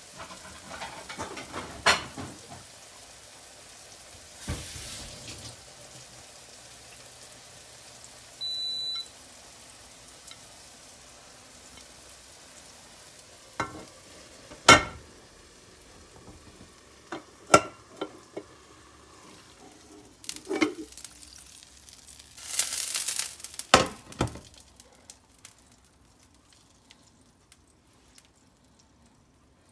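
Egg pancake frying softly in a pan, with sharp knocks and clatter as a ceramic plate is laid over the pan and the pan is turned over onto it. A single short electronic beep comes from the induction cooktop about eight seconds in.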